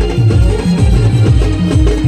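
Maharashtrian banjo-party band music with a heavy, steady drum beat and a melody line over it.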